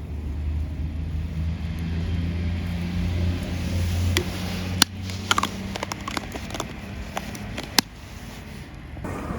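A low, steady engine-like hum, probably a vehicle passing, fades out about halfway through. It is followed by a run of sharp crackles and pops from the campfire, two of them louder than the rest.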